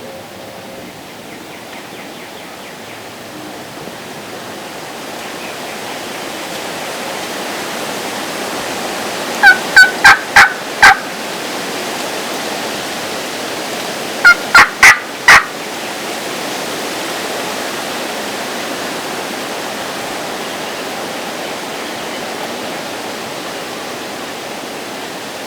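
Wild turkey gobbler gobbling twice, a few seconds apart, each gobble a loud rapid rattle, over steady wind noise on the microphone.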